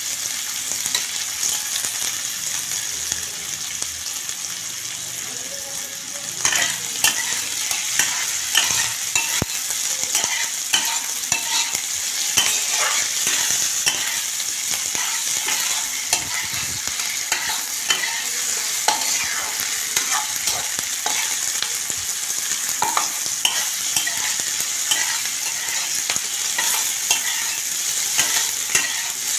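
Sliced onions, tomatoes and green chillies frying in oil with a steady sizzle, while a spatula stirs them, scraping and knocking against the pan. The stirring gets busier and louder about six seconds in.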